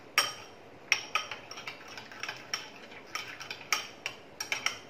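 Steel spoon stirring melted garlic butter in a glass bowl, clinking against the glass about a dozen times at an irregular pace.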